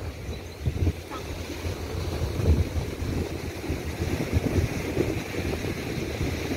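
Sea wind buffeting the phone's microphone in an uneven low rumble, over the wash of surf.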